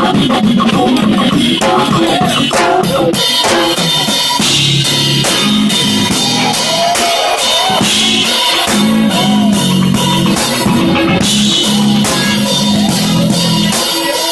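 Live jazz-fusion band playing, driven by a busy drum kit with kick, snare and cymbals under a steady bass line.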